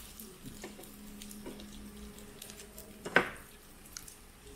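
Metal tongs and scissors clicking and scraping against a barbecue grill plate and dishes while pork belly is turned. About three seconds in there is one loud, sharp clack.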